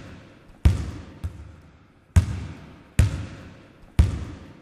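A basketball bouncing on a hard floor: four loud, separate bounces about a second apart and one faint one, each echoing away before the next.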